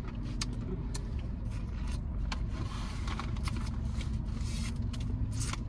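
Crunching and chewing on crispy fried chicken wings, with scattered sharp crackles, over a steady low hum inside a car.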